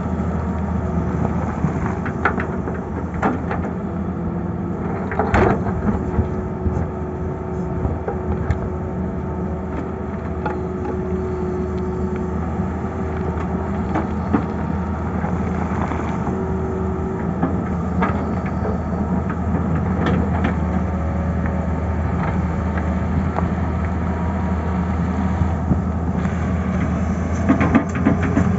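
Tata Hitachi tracked excavator's diesel engine running steadily under load while its bucket digs and scrapes at rock, with scattered knocks and clanks of stone and steel, the strongest about five seconds in and a few more near the end.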